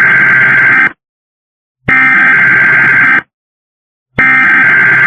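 Emergency Alert System SAME header: loud bursts of digital data tones, each about a second and a half long, separated by a second of silence. Three bursts are heard, the first already under way at the start. It is the coded signal that opens an emergency alert broadcast.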